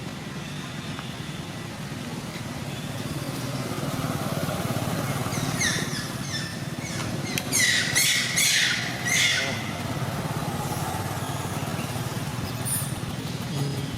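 A run of high, shrill animal squeals with falling pitch, loudest about halfway through, over a steady low engine-like rumble.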